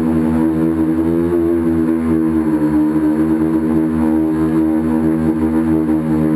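Electric motors and propellers of a tricopter running in flight, heard from the camera on board. They give a steady buzzing whine that rises slightly in pitch about a second in.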